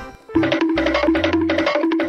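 Background music: a short figure of repeated held notes over a bass line, starting after a brief gap about a third of a second in.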